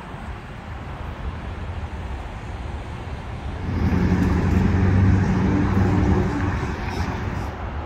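A vehicle's engine hum swells about four seconds in, holds for a few seconds and fades, over a steady rumbling background.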